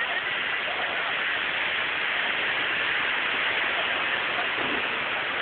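Steady rushing hiss of outdoor noise, with faint voices underneath about half a second in and again near the end.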